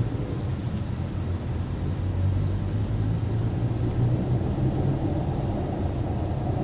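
Steady low rumble of a car's engine and tyres, heard from inside the cabin while driving slowly in city traffic.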